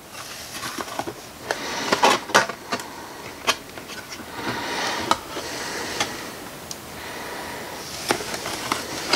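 Thin flattened tin-can sheet metal being handled against a tin can and marked with a felt-tip pen: scratchy rustling with a few sharp clicks and taps spread through.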